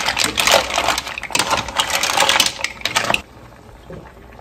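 Mussel shells clattering against each other and the stainless steel pot as they are tossed with a wooden spatula, a dense run of rattling clicks that stops short about three seconds in.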